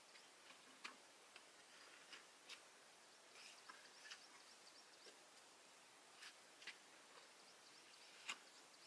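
Faint ambience near silence: a steady hiss with scattered light clicks and faint high chirps.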